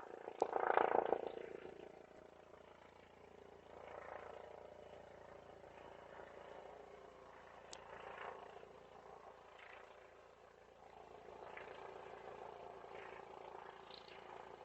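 Police helicopter heard faintly through a Ring doorbell camera's microphone, a steady drone that swells louder about a second in and rises and falls a few more times, with two brief sharp clicks.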